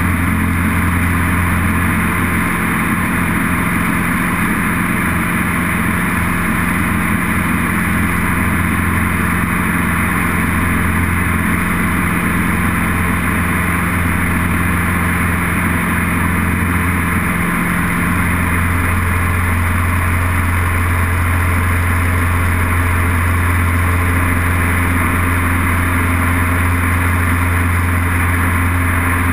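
Light airplane's engine and propeller droning steadily, heard inside the cockpit. Its note shifts slightly about two-thirds of the way through.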